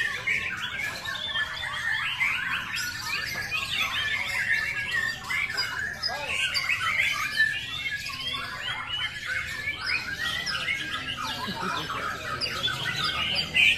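Many caged white-rumped shamas (murai batu) singing at once in competition: a dense, unbroken tangle of fast whistles, chirps and trills.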